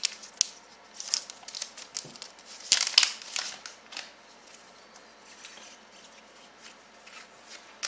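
Trading card packet being torn open and its wrapper crinkled, in crackly bursts that are loudest about three seconds in. After about four seconds it settles to faint rustling as the cards are handled.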